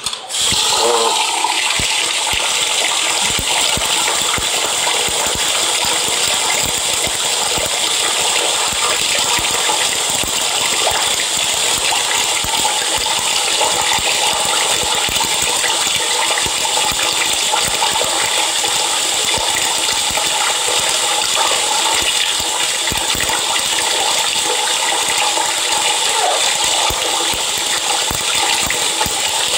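Water running steadily for about half a minute, an even continuous hiss that starts and stops abruptly.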